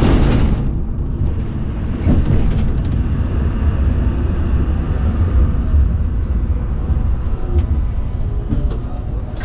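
A1 class electric tram running on its rails, heard from inside the car: a steady low rumble with a few light clicks about two seconds in and again near the end.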